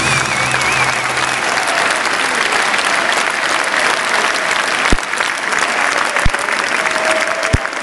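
Large stadium crowd applauding in one sustained wash of clapping, as the last low notes of the song die away in the first second and a half. Three short low thumps come through in the second half.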